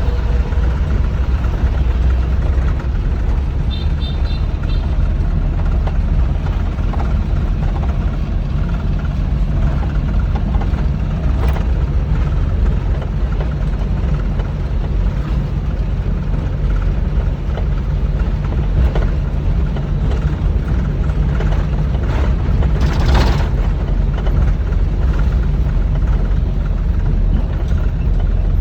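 Rice combine harvester running steadily, a continuous low engine rumble with a couple of brief rattling noises along the way.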